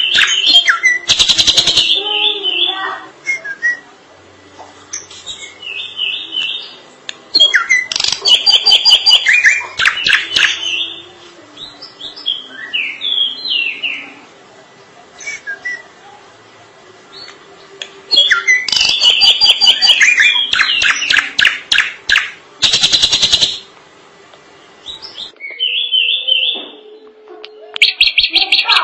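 Drongo singing a long, varied song: bouts of rapid, harsh chattering notes alternate with short whistled, slurred phrases, with brief pauses between bouts.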